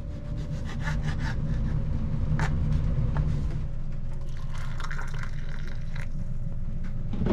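Hot water being poured into glasses with lemon slices to make tea: a steady rushing pour with a few light clicks of glass.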